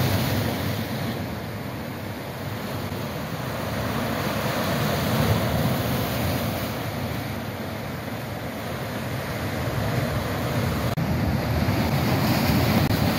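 Sea surf breaking and washing over a rocky shore, swelling and easing in slow surges, with wind rumbling on the microphone.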